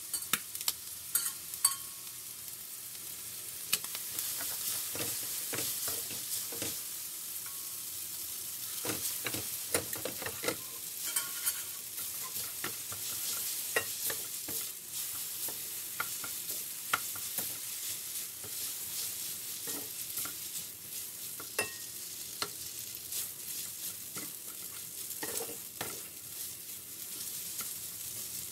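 Food frying in a pan with a steady sizzle, stirred with a utensil that clicks and knocks against the pan at irregular moments.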